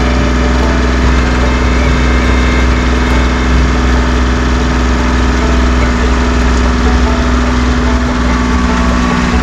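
Farm tractor engines running steadily under load, pulling against a tree stump on a chain.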